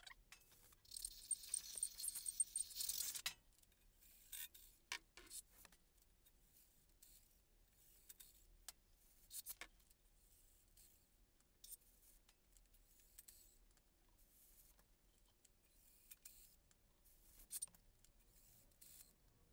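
Faint metallic clicks and scrapes from a thread chaser on a cordless impact driver being worked into the head-bolt holes of an LS engine block deck. About a second in, a hissing burst lasts roughly two seconds, then the scattered clicks carry on.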